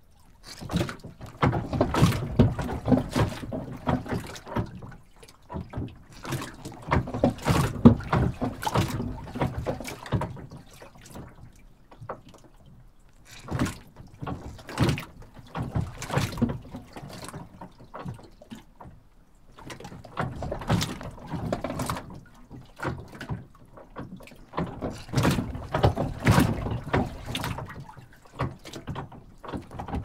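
A docked boat rocking: water splashing against the hull with dull knocks and bumps. It comes in bursts of a few seconds with quieter lulls between.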